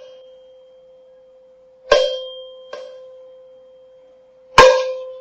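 A small resonant object struck twice, about 2 s in and near the end, each sharp hit followed by a lighter second tap. After each hit it rings on at one steady pitch with fainter higher overtones, slowly fading.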